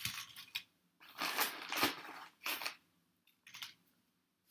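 Kettle-cooked barbecue potato chips being taken from their bag by hand and dropped onto a plate: several short bursts of rustling and crackling, the longest lasting about a second.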